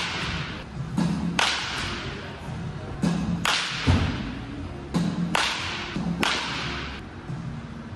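Baseball bat hitting machine-pitched balls in a batting cage: a run of sharp cracks, a second or so apart and some in close pairs, each with an echoing, hissing tail, mixed with duller thumps.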